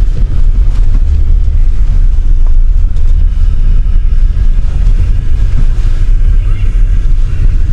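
A car driving, heard from inside: a loud, steady low rumble of the engine and tyres.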